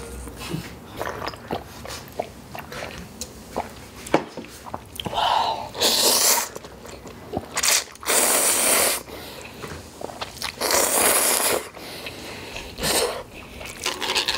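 Instant ramyeon noodles slurped up with chopsticks: several slurps, three of them about a second long, with soft chewing and small clicks in between.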